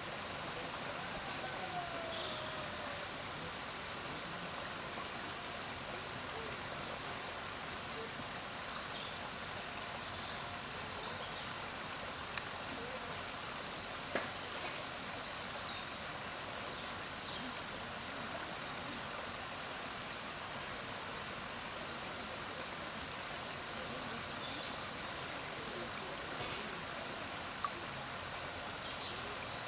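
Steady outdoor background noise, with faint high chirps scattered through it and three brief sharp clicks, about twelve, fourteen and twenty-eight seconds in.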